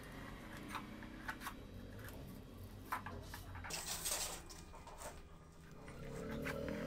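Hand tin snips cutting thin polished sheet metal: a series of sharp clicks and snips, with a longer scraping cut about four seconds in.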